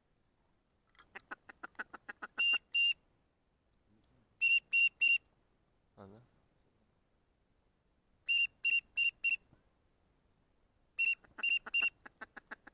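Ducks calling: short, clear whistled notes in groups of two to four, with runs of fast ticking calls between them.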